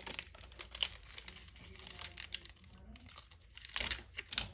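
Crinkly plastic packet being crumpled and torn by hand as it is pulled off an earbuds charging case. The crackling comes in clusters, loudest about a second in and again near the end.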